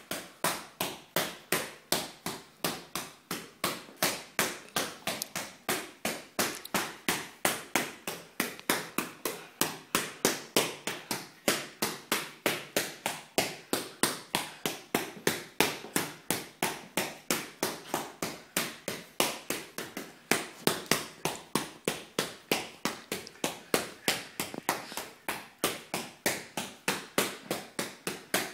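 Gloved fists punching a free-standing reflex ball on a stand in a fast, steady rhythm of sharp smacks, about three a second.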